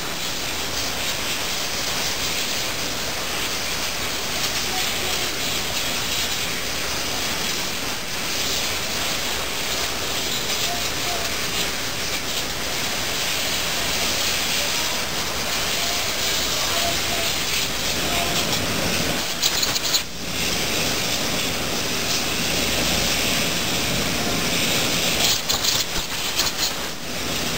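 Imatec ITG through-feed surface grinder running in production, a steady broad rushing hiss of the grinding wheels working the parts.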